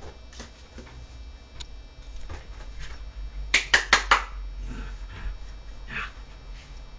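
Scattered sharp clicks and taps, with a quick run of four loud ones about halfway through.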